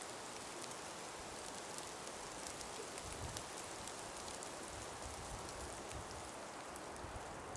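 Calm breeze through an ice- and snow-laden forest: a faint, steady hiss with scattered tiny ticks, and low wind rumble on the microphone from about three seconds in to near the end.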